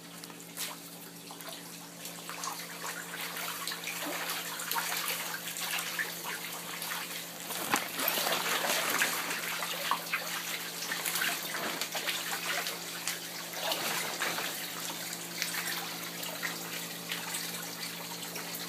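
Water trickling and splashing from an inflow pipe into an aquaponics fish tank, with a steady low hum underneath.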